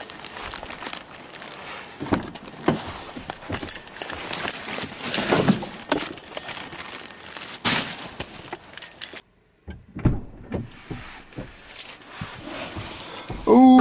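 Car keys jangling, with irregular knocks and rustles of handling as a bag is put into a car and the driver gets in. The sound cuts out completely for about half a second about two-thirds of the way through, and a man's voice starts near the end.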